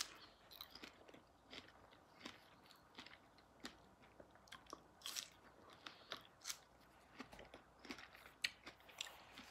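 Faint mouth sounds of a person biting into a fresh strawberry and chewing it. A sharper click right at the start is the bite, then soft irregular chewing clicks, about one or two a second.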